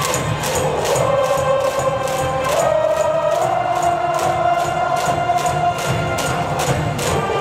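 School brass band playing a baseball cheer tune with held notes over a steady drum beat of about four strokes a second, while a large cheering section of students sings and chants along.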